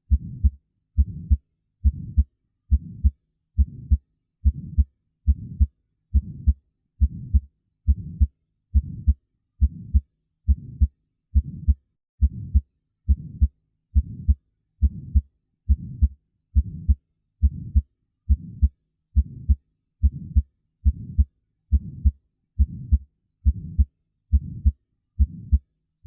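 Heart sounds heard through a stethoscope: a regular heartbeat, a little over one beat a second, with an innocent (physiologic) systolic murmur. The murmur comes from turbulent blood flow as the ventricles eject blood toward the semilunar valves and is not a sign of heart disease.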